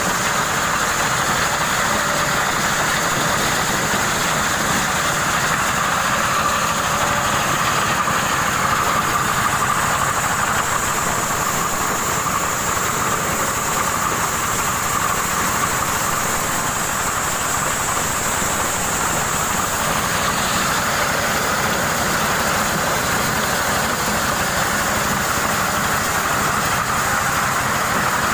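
Motorized corn sheller running steadily, shelling corn ears still in their husks.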